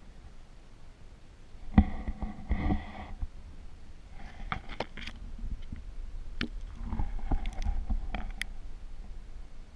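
Underwater handling noise from a camera held in a shallow pool: a steady low rumble with scattered sharp clicks, knocks and scrapes, as twigs and leaves brush against it.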